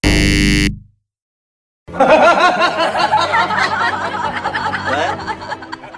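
A short synthesized tone that stops after about a second, then, after a brief silence, several people talking and laughing over the steady hiss of heavy rain.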